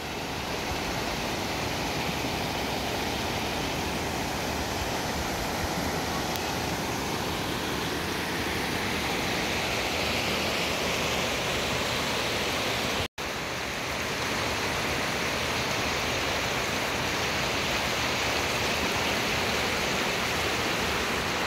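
Rushing water of a shallow rocky creek cascading over stones and small falls, a steady even rush. It cuts out for an instant about two-thirds of the way through.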